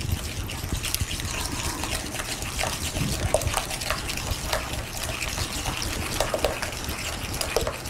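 Beaten eggs and sugar being stirred fast by hand in a mixing bowl: a steady wet sloshing with small clicks of the spoon against the bowl.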